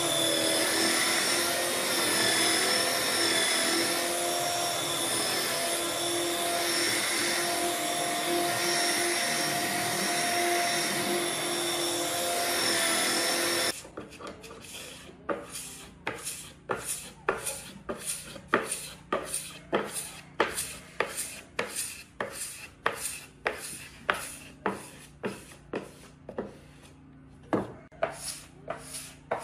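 A power tool runs steadily with a constant whine, then cuts off suddenly about 14 seconds in. After that comes a steady rhythm of hand rubbing strokes on wood, about one and a half a second, like rasping.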